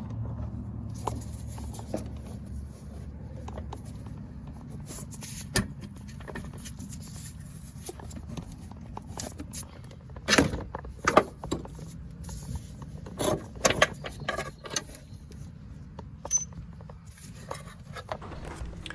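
Wrenches and bolts clinking and knocking against metal as the upper control arm's two mounting bolts are taken out and the arm is worked free. The clinks come scattered and irregular, several sharper ones about halfway through, over a steady low hum.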